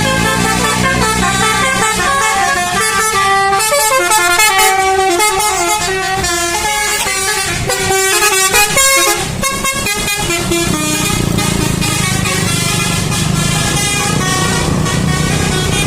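Bus 'telolet' horn playing a quick tune of changing notes over the bus engine's running rumble. The tune stops about eleven seconds in, and the engine and road noise carry on.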